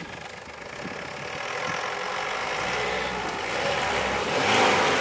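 Ford Endeavour's diesel engine running at low speed as the SUV crawls through deep dirt ruts, growing steadily louder as it draws near.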